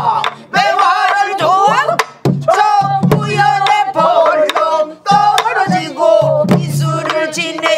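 Men and women singing pansori together in long, wavering, ornamented vocal lines, with stick strokes on buk barrel drums beating the rhythm between phrases.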